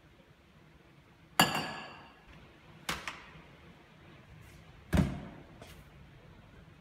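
Objects set down on a countertop: a stainless steel milk jug lands with a ringing metal clank about a second and a half in, followed by a sharper knock near three seconds and a heavier, deeper thump about five seconds in.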